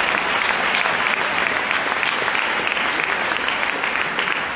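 A large congregation applauding: dense, steady clapping.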